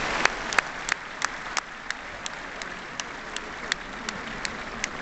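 Audience applause dying away, leaving one pair of hands close by clapping steadily at nearly three claps a second over a faint murmur of the hall.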